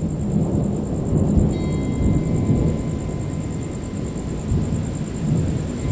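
Rolling thunder, a deep rumble that swells just after the start and keeps rising and falling, over steady rain.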